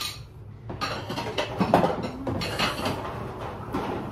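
Irregular clinks and knocks of ceramic plates and kitchenware being handled and stacked.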